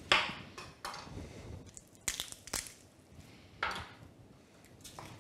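Raw chicken leg being twisted and pulled apart by hand at the joint on a wooden cutting board: a handful of short cracking and squelching sounds, the first the loudest.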